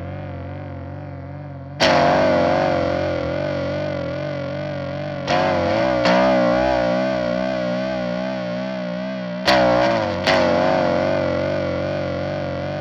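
Electric guitar played through a DOD Gonkulator, an EarthQuaker Devices Aqueduct vibrato and a Teisco Boost: distorted chords strummed about five times and left to ring out, the pitch warbling steadily up and down throughout.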